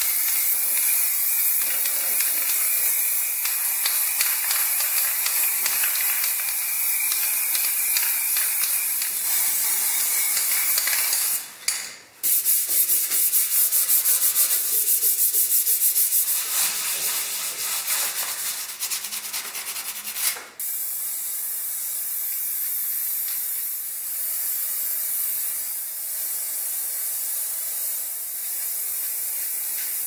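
Aerosol spray-paint can hissing steadily as sheet-metal panels of a fan heater housing are painted. About a third of the way in, the hiss gives way to some eight seconds of rapid back-and-forth rubbing strokes over a painted metal panel. Then the steady spray hiss returns.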